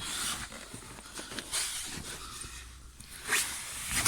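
Rustling and knocking handling noise from a person climbing down into a car's footwell under the dashboard, in irregular swells with a few knocks.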